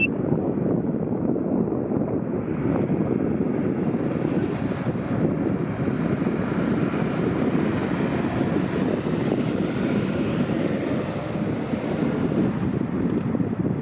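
Boeing 737-400's CFM56 jet engines at takeoff thrust: a steady low rumble that grows brighter and hissier in the middle as the jet passes, then dulls again, with wind buffeting the microphone.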